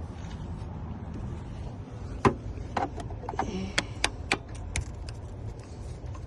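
A quick string of about a dozen sharp clicks and taps, like small hard objects being handled, starting about two seconds in, over a steady low rumble.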